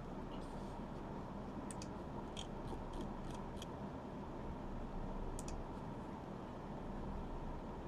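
Faint, crisp clicks and snips from trading cards and their packs being handled: a quick run of about seven near the start, then two more about halfway through, over a steady low hum.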